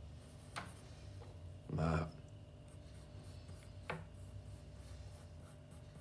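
Pencil drawing on paper: a few short, scratchy strokes, the loudest about two seconds in.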